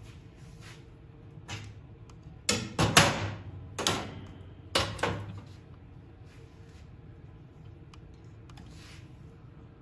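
Clatter and knocks of tools being handled, a few quick bursts between about one and a half and five seconds in, loudest around three seconds in, over a low steady background.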